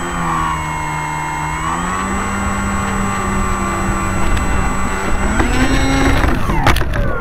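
Radio-controlled model floatplane's motor heard from an onboard camera, running with a steady pitch that rises about two seconds in and again near the middle, then drops toward the end, with a rush of air underneath. A few sharp knocks near the end.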